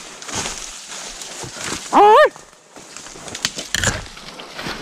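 A deer-drive hound gives one loud, short bark about two seconds in, over scattered clicks and rustling in the brush.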